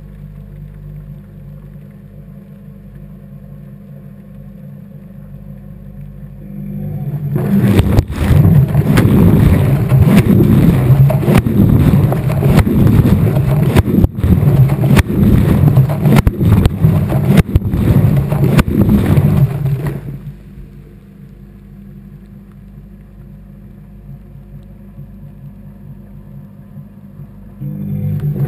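Washing machine during its wash cycle, heard from inside the drum: a steady hum, then about seven seconds in the drum turns for some thirteen seconds with water and laundry sloshing and knocking loudly. It stops back to the hum, and near the end the drum starts turning again.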